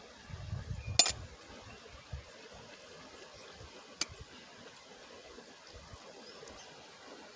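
Metal camp coffee pot and cup clinking as they are handled at a campfire: a sharp clink about a second in and a lighter one about four seconds in, with soft handling knocks between.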